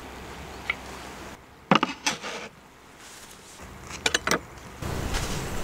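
Knife and fork cutting a crisp croffle on a wooden cutting board: two short clusters of crunching clicks and scrapes, about two seconds in and again about four seconds in.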